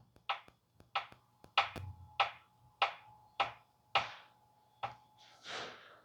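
Eight sharp knocks, about one every 0.6 s, with a softer rasp near the end, made at the piston of cylinder 4 in a 7.3-litre gasoline V8 whose head is off. This is the noise behind the cylinder-4 misfire, which the mechanic puts down to possibly broken piston rings or a broken piston.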